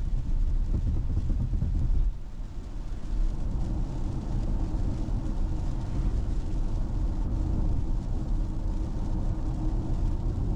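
Road and tyre noise inside a Tesla's cabin while driving on a rain-wet road: a steady low rumble with a hiss above it, and no engine sound from the electric drive. The noise drops briefly about two seconds in, then builds again.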